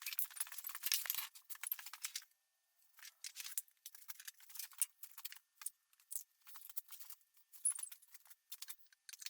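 Faint, irregular light clicks and small rattles from small workshop parts being handled.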